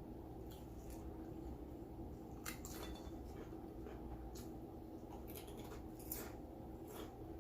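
Close-up mouth sounds of chewing a chopped cheese sandwich: scattered soft wet clicks and smacks, a few at a time, over a steady low hum.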